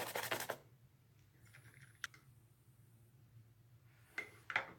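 A brush scrubbing at grass stains on a white leather sneaker with quick back-and-forth strokes, stopping about half a second in. After that it is mostly quiet, with a sharp click about two seconds in and two short scuffs near the end.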